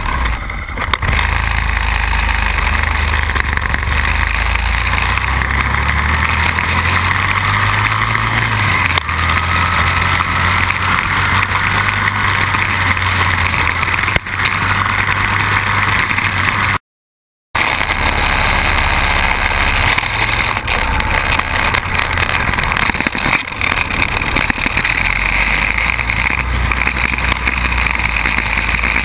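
Quad bike (ATV) engine running under way off-road, heard from the machine itself, with its note rising and falling as the throttle changes and a steady rush of noise over it. The sound breaks off briefly about halfway through and picks up again.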